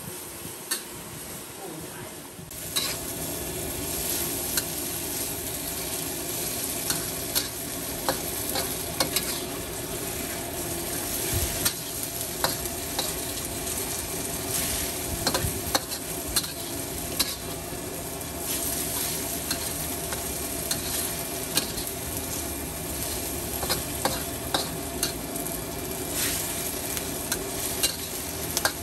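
Noodles stir-frying in a hot wok: a steady sizzle with frequent sharp clinks of the metal spatula against the wok. The sizzle starts up strongly about two and a half seconds in.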